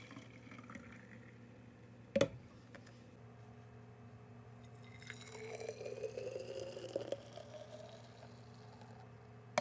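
Green juice poured from a plastic jug into a narrow-necked glass bottle, faintly, the pitch of the pour rising as the bottle fills. A single sharp knock about two seconds in.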